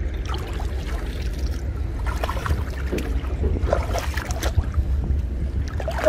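Water sloshing and splashing irregularly as a man wades knee-deep through shallow floodwater and handles a fishing net, busiest in the middle, over a steady low rumble of wind on the microphone.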